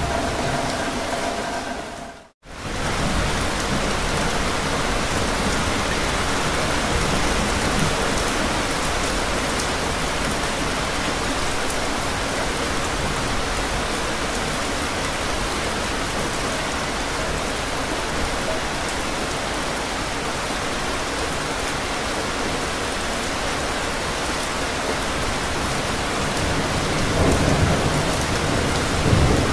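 Steady heavy rain pouring, with thunder rumbling low and swelling near the end. The sound drops out for a split second about two seconds in and comes straight back.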